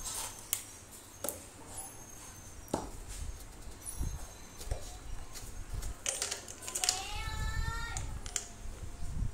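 Scattered clicks and knocks of a standing fan's wire guard and plastic hub being handled and fitted over the motor shaft. About two-thirds in, a short pitched cry of about a second rises slightly and falls away.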